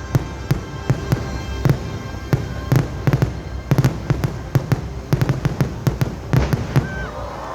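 Fireworks bursting in a rapid finale barrage, many sharp bangs and crackles a second over a deep rumble, with the show's music faintly underneath.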